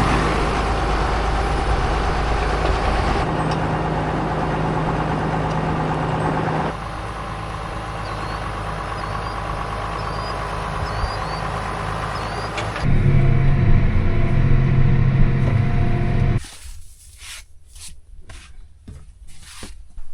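Heavy farm machinery engines running steadily, in a string of short clips, with the sound changing abruptly from one clip to the next. The last few seconds are quieter, with a run of sharp knocks and clatters.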